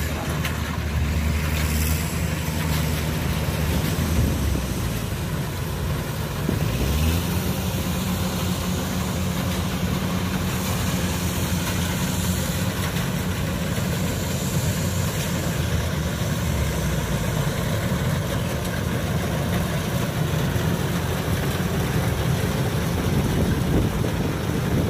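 Kubota DC105X combine harvester's diesel engine running under load while cutting rice. It picks up speed about seven seconds in, then holds steady.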